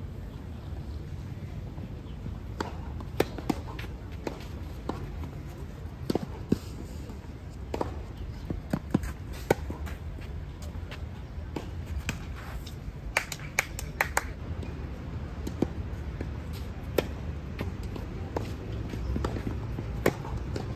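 Tennis ball being struck by rackets and bouncing on a clay court during a rally: a string of sharp pops, about one every second or so, over a low steady rumble.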